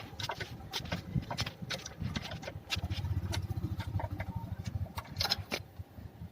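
Irregular clicks and metallic knocks of hand tools working on bolts while a new engine mount is being tightened, with a faint low hum underneath.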